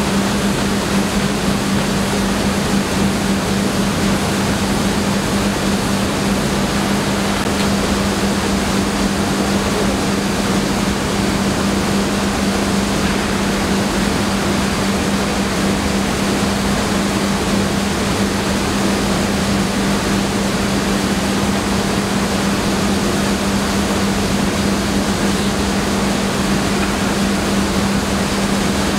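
Rice mill machinery running steadily: a loud, even rushing noise with a constant low hum.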